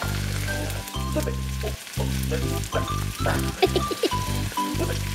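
Frying sizzle sound effect over bouncy background music, laid on a toy Play-Doh egg being cooked in a toy pan. A sharp click about three and a half seconds in.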